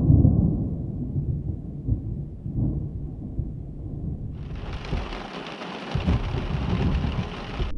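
Thunder rumbling, loud at the start and fading over a few seconds. About four seconds in, it gives way abruptly to a steady hiss of rain on a car windshield, with low rumbling beneath.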